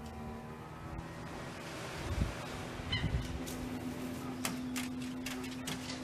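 Oriental pied hornbill giving harsh, honking calls about two and three seconds in, followed by a run of sharp clicks, over a steady low hum.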